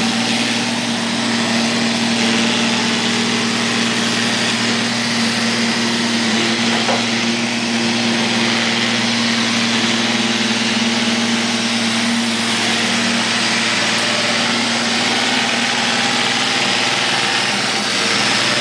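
Neato robot vacuum cleaning: its suction fan and brush motors running with a steady hum and whirr.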